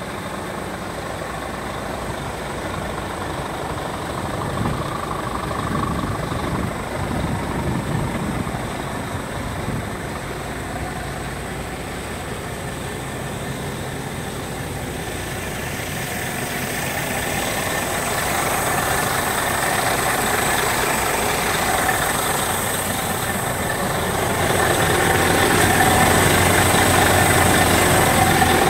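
Scania G 400 tractor unit's diesel engine idling steadily, growing louder in the second half as it is heard from closer to the truck.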